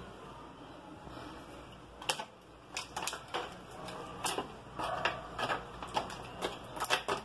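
Metal spoon clicking and scraping against a thin plastic tray while stirring chicken livers in their marinade. The first two seconds are quiet, then a run of a dozen or so irregular sharp clicks follows.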